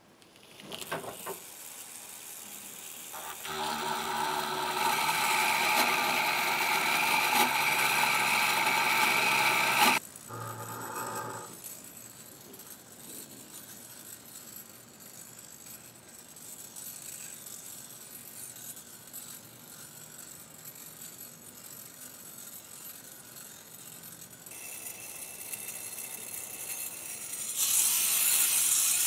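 Toy gyroscope's spinning metal rotor humming steadily, a whir with a buzz in it. It is loudest for the first several seconds, drops off suddenly about ten seconds in, then goes on more faintly, and swells loud again near the end.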